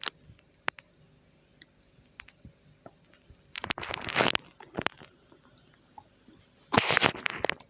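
Two rubbing, rustling strokes of about a second each, from hands massaging along a person's skin with thumbs and oil, with faint scattered clicks between them.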